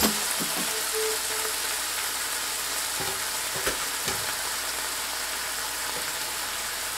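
Thin strips of beef sizzling steadily in hot oil in a frying pan. A utensil stirs the meat and clicks lightly against the pan at the start, with a few more faint clicks about three to four seconds in.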